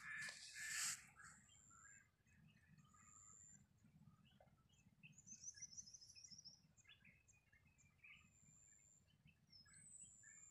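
Faint songbird chirps and thin high whistles, with a quick trill of rapid notes about halfway through, over a low steady background hiss. A short noisy burst sounds in the first second.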